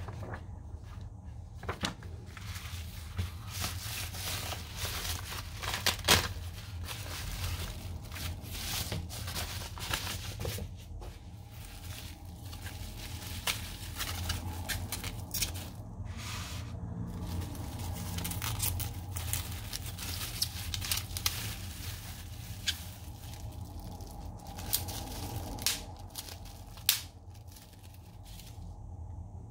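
Bubble-wrap packaging crinkling and crackling as a wrapped package is handled and unwrapped, with paper pages rustling as a magazine is turned at the start. The crinkles and rustles come irregularly, with a few sharper crackles.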